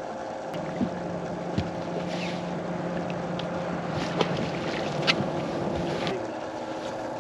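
Steady low hum and wind noise on a bass boat, broken by a handful of short, sharp knocks and clicks as people move and handle gear on the deck.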